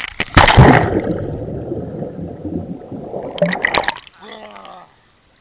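A person splashes into a pond feet first, then there are about three seconds of muffled underwater gurgling and churning from the camera under the surface. A second splash about three and a half seconds in is the surfacing, followed by a short sputter as he blows water out. Everything is heard through an action camera's waterproof case.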